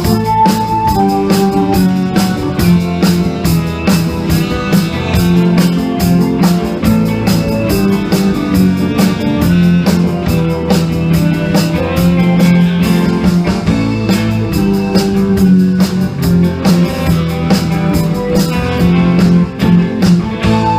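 A band playing a song with guitar over a drum kit keeping a steady beat.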